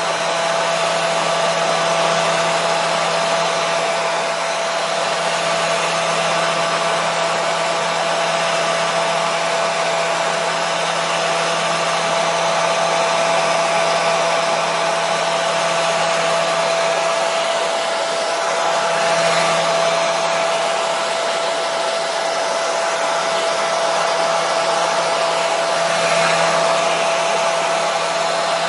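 Hair dryer running steadily: a continuous airflow rush with a steady motor whine and a low hum, used as white noise to soothe colicky babies.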